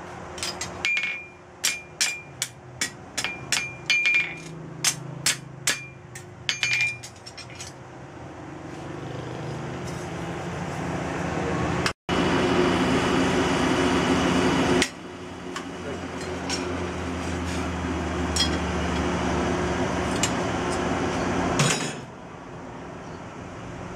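Hand hammer striking a billhook blade forged from a car leaf spring on a steel anvil: about fifteen blows in the first seven seconds, each with a short ring from the anvil. Then a steady rushing noise with a low hum, the coal forge's air blower running, which builds over several seconds and carries on until near the end.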